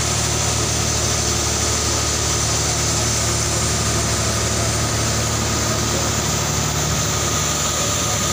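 An engine running steadily at idle, a constant low drone that does not change.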